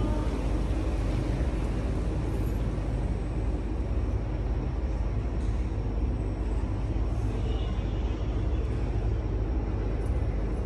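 Steady low rumble and hiss of a large, crowded prayer hall as a congregation of hundreds moves down into prostration, with no recitation.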